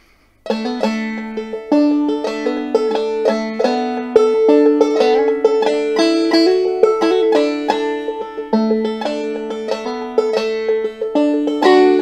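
Five-string banjo played clawhammer style, picking out a haunting Scottish folk melody with a steady high drone note ringing beneath it. It starts about half a second in.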